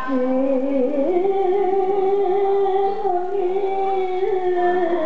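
A voice singing one long, unbroken note that slides up about a second in and sinks back down near the end.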